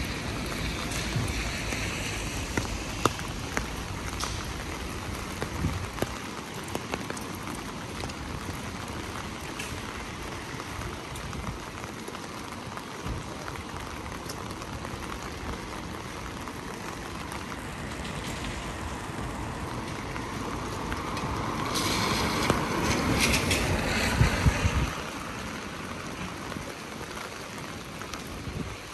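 Steady rain on a wet street, with scattered sharp ticks of drops. Traffic on the wet road swells louder in the second half and cuts off suddenly about 25 seconds in.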